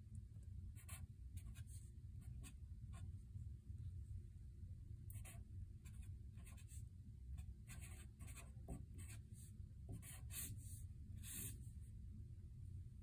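Faint strokes of a Sharpie felt-tip marker on paper as an equation is written: short, irregular scratches, thicker in the second half, over a steady low hum.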